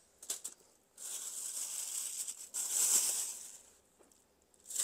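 A crinkling rustle of a partly frozen raw chicken being handled and its skin pulled off, lasting about three seconds with a short break in the middle, after a few small clicks.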